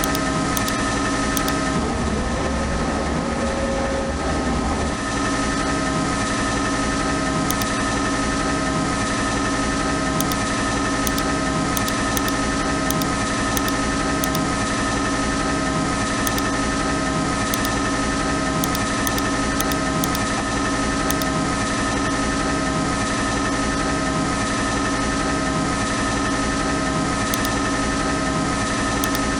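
A CNC lathe running steadily, with several constant machine tones and a low pulse repeating at an even pace, typical of a G92 threading cycle.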